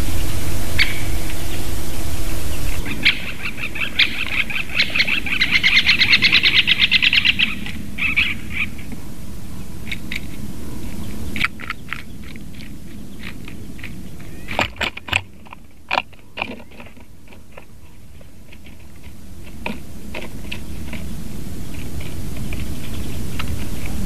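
Treecreeper and woodpecker sounds: about three seconds in, a fast run of taps lasts roughly four and a half seconds, followed by scattered sharp taps and clicks.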